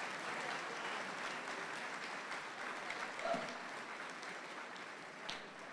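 Audience clapping, slowly dying down.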